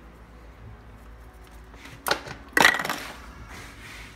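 Kitchen things knocking on the worktop while they are handled: a sharp click about two seconds in, then a louder clack with a brief rattle just after.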